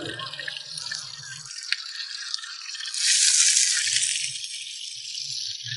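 Lard and Sichuan peppercorns sizzling in a hot wok, a steady hiss that flares up loudly about three seconds in and then eases back.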